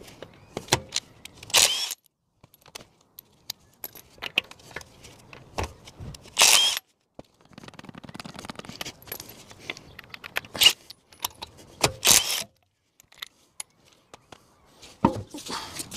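Wheel nuts being taken off a car's front wheel: several short bursts from a cordless impact wrench a few seconds apart, with light metallic clinks and jingling of the loose nuts in between.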